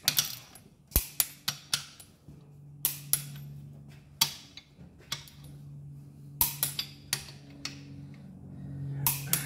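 Click-type torque wrench ratcheting and clicking as the crankshaft main bearing cap bolts are tightened down. A quick run of ratchet clicks comes first, then single sharp clicks every second or two. A steady low hum runs underneath from about two seconds in.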